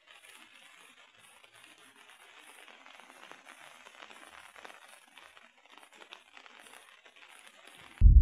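Faint hiss with light crackling, then loud music with heavy bass starts suddenly near the end.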